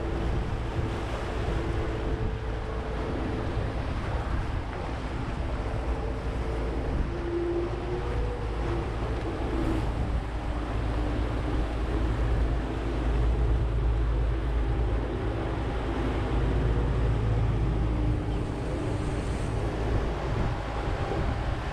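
Boat engine running steadily under way, with a low rumble, water rushing past the hull and wind buffeting the microphone.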